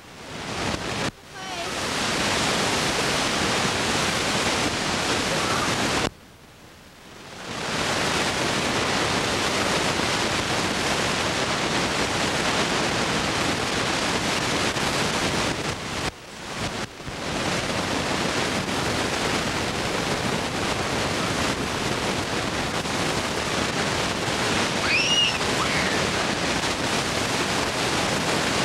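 Steady rushing wind noise on a camcorder microphone, dropping out briefly about six seconds in and again around sixteen seconds.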